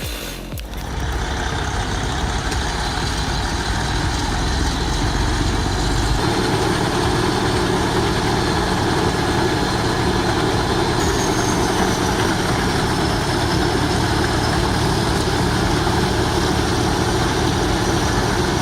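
A heavy machine's engine running steadily, its tone shifting about six seconds in.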